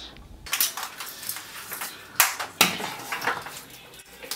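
Close handling noises: rustling and small clicks and clatters as objects are moved about, with two sharp clacks a little after two seconds in.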